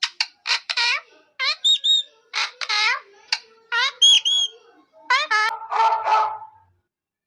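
A quick series of short, high-pitched animal calls, many of them rising in pitch, with a few higher chirps mixed in.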